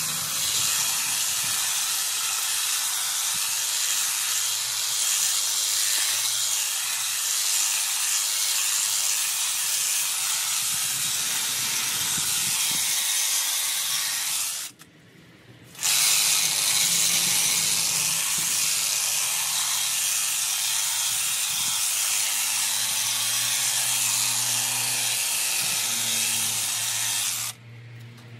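Honda HHH 36 AXB cordless battery hedge trimmer running and cutting the hedge, a steady high-pitched hiss-like noise. It stops for about a second midway, then starts again and cuts off just before the end.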